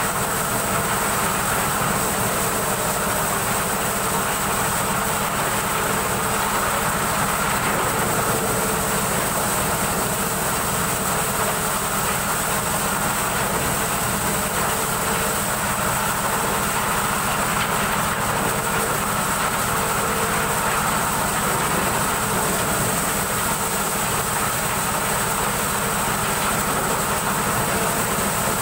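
Engine-driven corn sheller running steadily while maize cobs are fed into its hopper and threshed: a continuous loud machine drone with a steady high whine over it.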